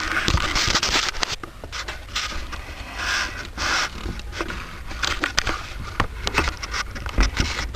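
Irregular clicks, taps and short scrapes of hand tools, likely pliers, working on metal, as remnants of a corroded pot-metal heater hose fitting are picked out of the intake manifold.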